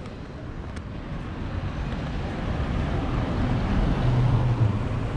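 A motor vehicle driving past, its noise growing louder to pass closest about four seconds in, with a low engine hum at the loudest point.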